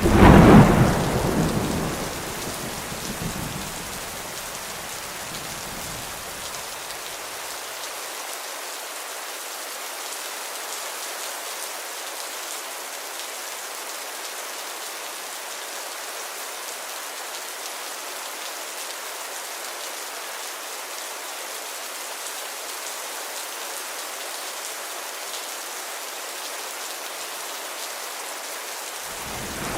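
Heavy rain falling steadily as an even hiss. A loud clap of thunder right at the start rumbles away over about four seconds, and another begins at the very end.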